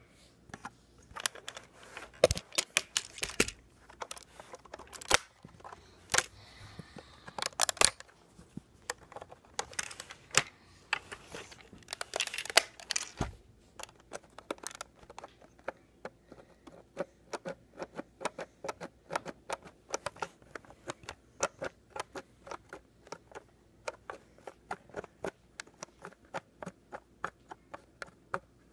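Plastic Lego bricks being handled and pulled apart: a long run of small clicks and snaps, louder and busier in the first half, then lighter, fairly even clicking.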